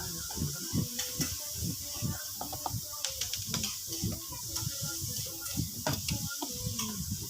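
Indistinct talking throughout, with scattered small clicks and taps.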